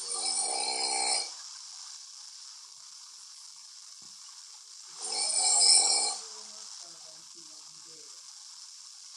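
A man snoring in his sleep: two snores, each about a second long, one at the start and one about five seconds in, with a steady faint hiss between them.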